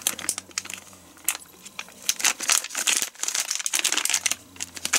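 Plastic pouch of a gel keyboard cleaner crinkling in irregular rustles as it is handled and the gel is put back inside, with a brief lull about a second in.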